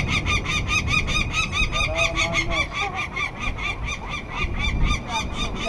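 Adult peregrine falcon giving its harsh, rapid 'kak-kak-kak' alarm call, about eight notes a second without a break. This is the parent's call of alarm and defence as it circles low over people handling its chicks at the nest.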